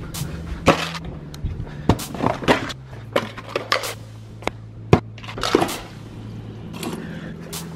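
Kitchen handling noises: a wooden cupboard door, a plastic shaker bottle and lids knocking on a countertop, and a refrigerator door's water dispenser being worked. It is a quick run of sharp clicks and knocks with a few short rustles, over a steady low hum.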